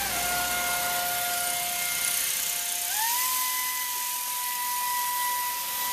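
Pneumatic air ratchet running on the transmission filter bolt: a steady whine over the hiss of the air, stepping up to a higher pitch about three seconds in as the tool speeds up.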